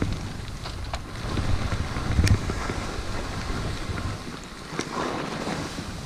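Wind buffeting the camera microphone as a skier descends, a gusty low rumble heaviest in the first couple of seconds and easing later, over the noise of skis sliding on packed snow. A sharp click a little after two seconds in and a few more near the end.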